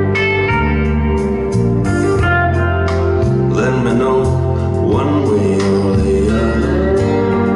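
Music played back through a Technics SU-7700K stereo amplifier and speakers: a song with guitar over a steady bass line, and a singing voice entering in the middle.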